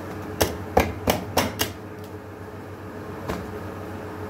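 Steel plates and utensils clinking and knocking as chapatis are laid out: five quick clacks in a little over a second, then one more about three seconds in, over a steady low hum.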